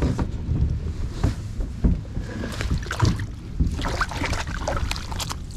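Water splashing as hands work at the surface beside a kayak, with irregular knocks and bumps against the hull and a low wind rumble on the microphone.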